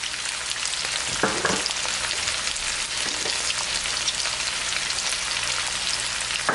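Onion, bell pepper and ketchup sizzling steadily in a hot oiled wok over high heat, stirred with a wooden spatula.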